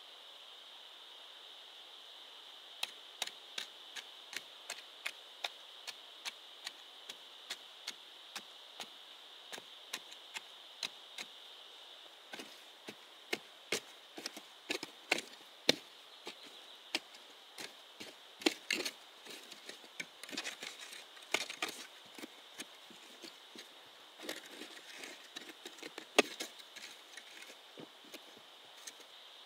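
Chopping bamboo with a blade: sharp strikes, light and evenly spaced at first, about one every two-thirds of a second, then from about halfway louder, faster and irregular. A steady high-pitched drone continues underneath.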